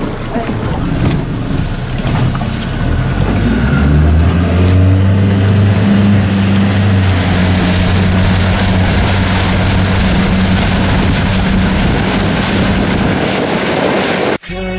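A wakeboard tow boat's engine revs up about three seconds in and then runs steadily at speed, over the rush of water and wind. It cuts off abruptly near the end.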